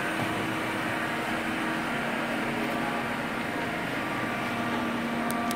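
Okuma LR-15M CNC lathe running, its spindle turning, giving a steady machine hum. The hum's main tone drops slightly in pitch about two seconds in, and a few small clicks come near the end.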